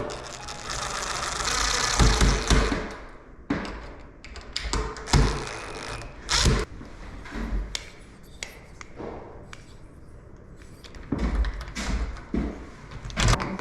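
Rustling for the first couple of seconds, then a string of uneven clicks, taps and knocks as doorknob hardware is handled and fitted to a door.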